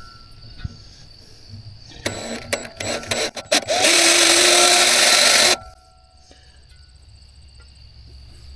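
A few knocks and clicks, then a power drill runs for about two seconds and cuts off suddenly, its bit starting a hole in the steel frame of a boat trailer.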